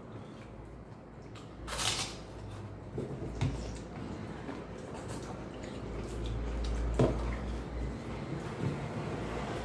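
Pani puri being eaten and served at a table: puris popped into mouths and eaten, and spiced water poured from a glass jug into small brass cups, with light knocks and clinks of the brass ware. A short hissing burst comes about two seconds in, and sharp clicks come around three and a half and seven seconds in.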